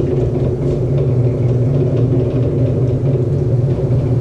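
A shop machine's electric motor running steadily, with a low, even hum.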